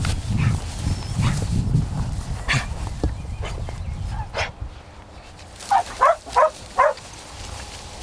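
A dog gives four short, high yips in quick succession about six seconds in, over a low rumble that dies down about halfway through.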